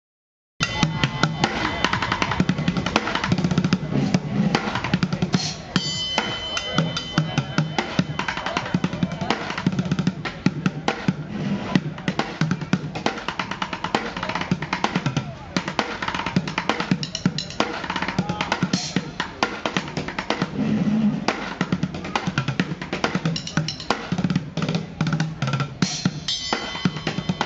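Bucket drumming: fast drumstick strokes on upturned five-gallon plastic buckets, mixing deep bass thuds with sharp rim and shell hits in a quick, busy rhythm that starts abruptly about half a second in. Ringing metal crashes come about six seconds in and again near the end.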